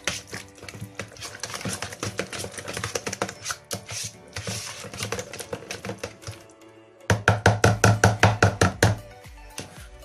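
Background music with a fast clicking rhythm. About seven seconds in, a loud run of evenly spaced beats, about four a second, lasts roughly two seconds.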